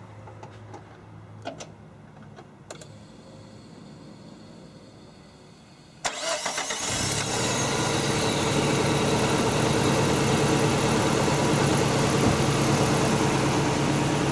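A few faint clicks, then about six seconds in the Nissan S13's four-cylinder engine cranks briefly, catches and settles into a steady idle. This is the first start after replacing the broken coil-pack connector plugs that had been causing a misfire.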